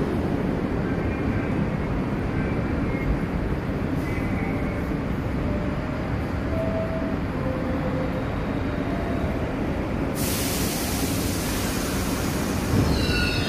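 Steady low rumble of a subway train standing at a station platform. About ten seconds in, a loud hiss of air starts suddenly and keeps going. Near the end come a few short high ringing tones.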